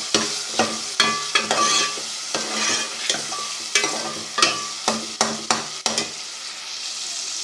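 Chopped tomatoes with onion and ginger-garlic paste frying in oil in a steel pot: a steady sizzle, with a metal spoon scraping and clicking against the pot as the mixture is stirred. The stirring stops about six seconds in while the sizzle goes on.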